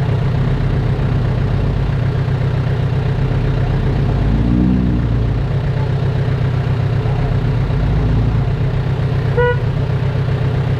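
Heavy diesel engine of earthmoving machinery running steadily with a low, regular pulse, briefly rising and falling in pitch about four to five seconds in. A short horn toot sounds near the end.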